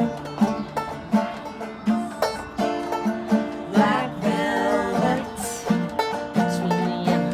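Acoustic string band playing an instrumental passage: banjo picking over acoustic guitar, with fiddle, in a quick run of plucked notes.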